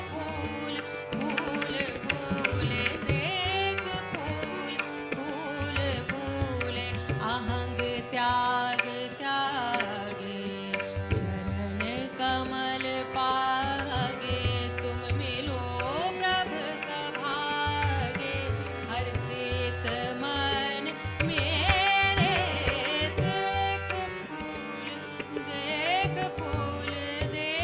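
A Gurbani shabad sung with tabla accompaniment over steady sustained notes, playing continuously.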